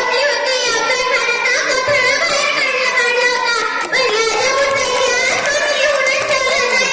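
A young girl's loud voice speaking in Marathi in a high, sing-song, chant-like way, holding and bending long notes.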